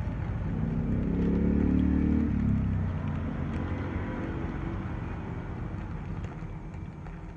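A motor vehicle's engine passing close by, swelling to its loudest about two seconds in and then fading away.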